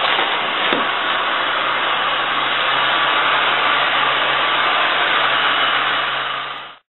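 Handheld heat gun blowing hot air steadily onto vinyl wrap film to soften it as it is stretched over a golf car's body, a constant fan rush with a low motor hum underneath. It cuts off suddenly near the end.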